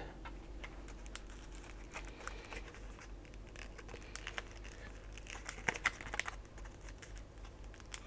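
Clear plastic blister pack being handled and turned over in the hands: faint crinkling and clicking of the plastic, with scattered sharp ticks, busiest a little past the middle.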